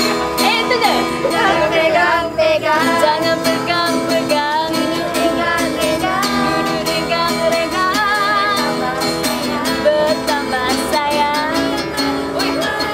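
Music: a song sung with wavering, vibrato-laden held notes over plucked guitar accompaniment.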